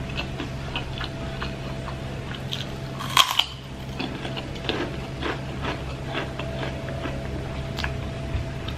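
Crisp crunching and chewing as a kerupuk cracker is bitten and chewed, in many small crackles with one louder crunch about three seconds in. A steady low hum runs underneath.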